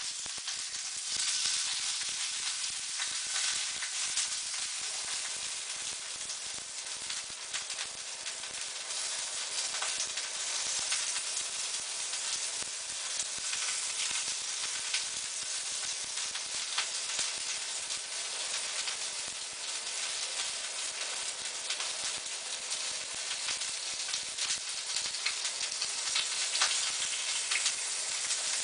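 Fresh stevia and sage leaves frying in hot extra virgin olive oil in a frying pan: a steady sizzle with scattered small pops.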